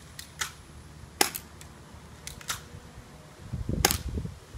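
Suppressed spring-powered Walther PPQ airsoft pistol being cocked and fired: a string of short, sharp clicks and clacks, a few seconds apart and in quick pairs, with a low rumble of handling near the end.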